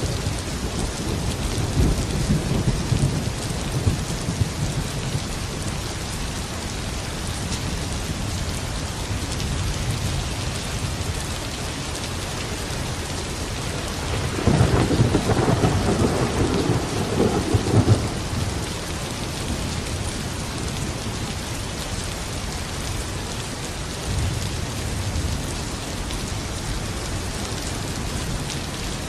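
Steady heavy rain with rolls of thunder: a low rumble early on, a louder, longer peal about halfway through, and a weaker rumble near the end.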